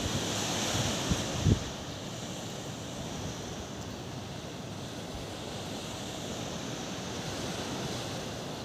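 Sea waves washing on the shore under a steady rush of wind. Wind buffets the microphone in a couple of brief low thumps during the first two seconds.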